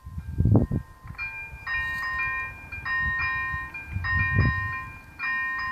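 Railway level crossing's electronic warning bell starting up about a second in: a repeating electronic chime whose pattern comes round roughly once a second, sounding with the flashing red lights as a warning that a train is approaching. Low thumps underneath, the loudest shortly after the start and again near four and a half seconds in.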